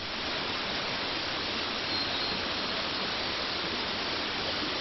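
Steady, even rushing noise with no distinct events, swelling in at the very start.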